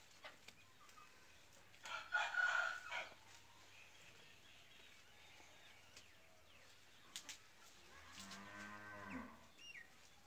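Aseel chickens calling in a shed: a loud, harsh squawk about two seconds in that lasts about a second, then near the end a low, drawn-out call that drops in pitch as it ends.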